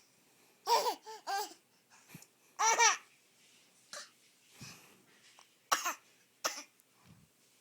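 A baby laughing and babbling in short bursts: three quick pitched sounds about a second in, one longer one about half way, then two short sharp ones near the end.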